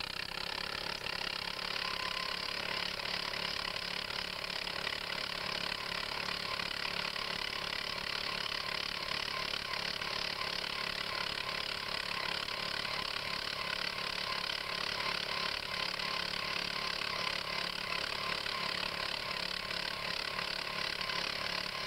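Two-man gas-powered earth auger running steadily at high speed, its engine holding one pitch as the bit turns in frozen ground and cuts little.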